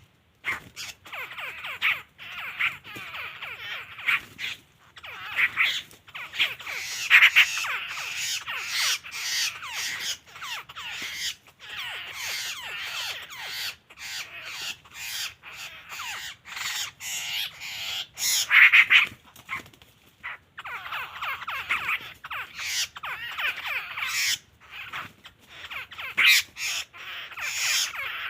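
Laughingthrushes calling in a dense, harsh chatter that runs on without a break, loudest about seven and nineteen seconds in.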